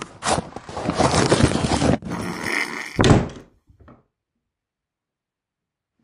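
About two seconds of loud scuffling noise, then a door slams shut just after three seconds in.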